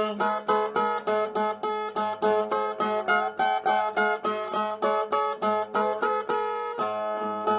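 Brazilian viola, a ten-string steel-strung guitar, playing an instrumental passage between sung verses: quick, even plucked strokes, about four a second, over a held low note.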